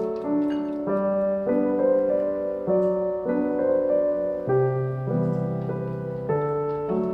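Background piano music, its notes and chords changing about once a second.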